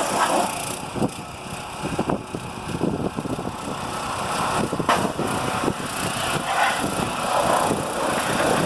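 Gas pressure washer engine running steadily while its jet of water sprays mud off the underside of a truck.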